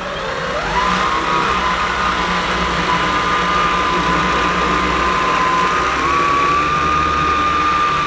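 Bosch Unlimited BCS111GB cordless stick vacuum starting up on its regular (low-power) setting: the motor's whine rises over about the first second, then holds as a steady high whine. The power brush head is pushed forward and back over carpet, picking up pet hair.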